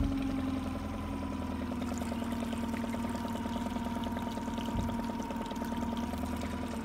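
A steady mechanical whir with a fast, even pulse, its pitch dipping slightly near the end. A soft thump at the very start.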